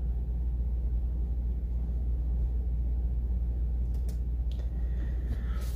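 Steady low hum, with two faint clicks about four seconds in.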